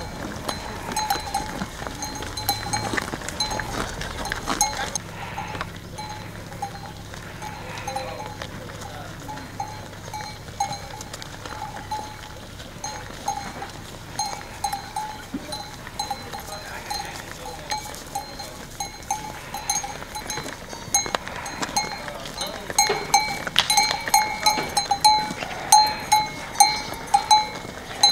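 Bells on a walking herd of cattle and goats clanking irregularly with a fixed metallic ring, growing louder and more frequent near the end as the animals come closer.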